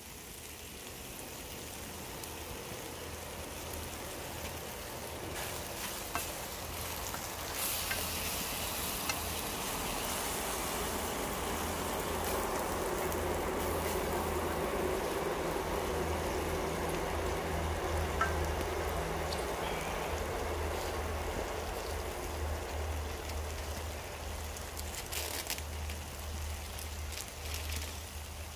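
Food sizzling in a frying pan over campfire coals on a high heat. The sizzle swells over several seconds and eases off again, with a few sharp clicks and ticks.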